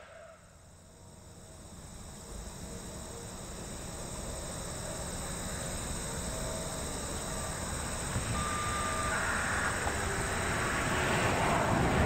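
Steady high-pitched insect buzzing, under a broad rushing noise that grows louder throughout.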